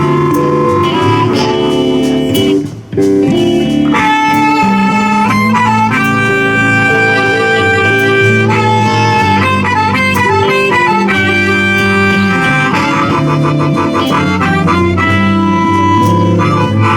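Live blues band playing an instrumental passage: harmonica holding long notes over electric guitar, bass and drums. The sound dips briefly about three seconds in.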